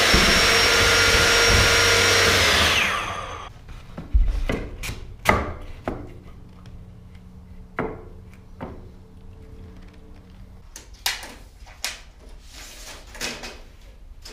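Electric benchtop saw running after a cut through a 2x4, its motor whining and then spinning down about three seconds in. Then a series of scattered wooden knocks and taps as 2x4 strips are pressed into place along the floor.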